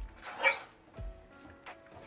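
Background music with a steady low beat about once a second, and one short, loud, sharp sound about half a second in.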